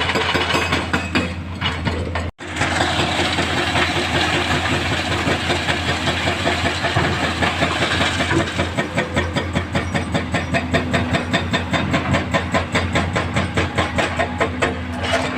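Heavy diesel engine of the earth-moving machinery running with a steady, even pulsing, breaking off for an instant about two seconds in.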